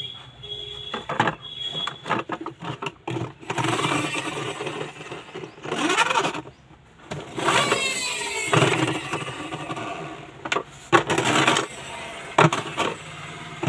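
Plastic toy car playing engine-like electronic sound effects that rise and fall in pitch, with short plastic knocks as it is handled and set on the table.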